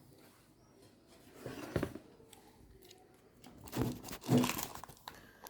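Hands folding and tucking sheets of msemen dough under, making soft rustling and crinkling noises in two short bursts, about a second and a half in and again around four seconds.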